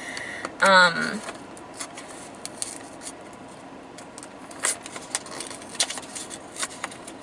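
Small cardboard blind box being opened by hand: scattered clicks, scrapes and rustles as the end flap is pried and the packaging pulled. A brief vocal sound from the person comes about a second in.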